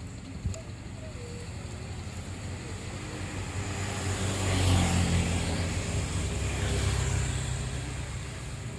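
Scania tour coach's diesel engine running as the bus pulls out and passes by. It grows louder to a peak about halfway through, then gradually fades. A short knock is heard about half a second in.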